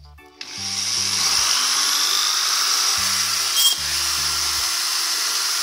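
Electric drill mounted in a drill stand starting about half a second in and running steadily at speed, drilling a hole into a small beech-wood block. Background music plays underneath.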